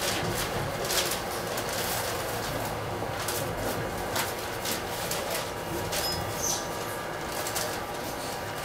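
Cab of a Tokyu Oimachi Line commuter train moving slowly along a platform: a steady low rumble with scattered sharp clicks and ticks. A brief high chirp comes a little after six seconds in.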